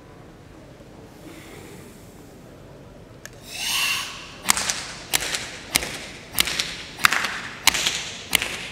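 A forceful, hissing Sanchin breath about three and a half seconds in, then seven sharp open-hand slaps, about one every 0.6 seconds, on the bare upper body of a karateka holding Sanchin stance: the shime check of his muscle tension.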